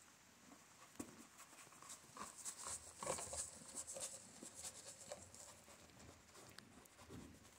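Horse eating oats from a feed pan, its muzzle working through the grain as it chews: a faint run of quick, crackly crunches and clicks, busiest about three seconds in.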